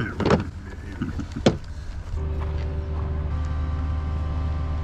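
A few short handling sounds and a sharp click, then about two seconds in a steady machine hum starts, holding an even pitch.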